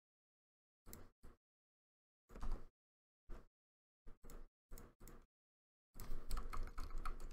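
Computer keyboard typing in short scattered bursts of key clicks with dead silence between them, then a denser run of typing from about six seconds in.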